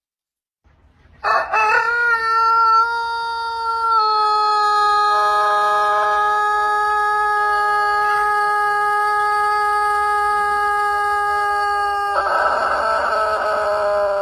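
A crowing call like a rooster's cock-a-doodle-doo. It starts about a second in and holds one steady note for about ten seconds, far longer than a normal crow, then turns rough near the end.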